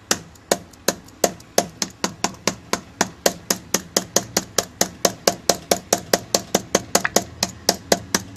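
Fist thumping hard and repeatedly on a MacBook's case above the keyboard, to knock a jammed cooling fan loose. The sharp knocks come about three a second at first and quicken to about five a second.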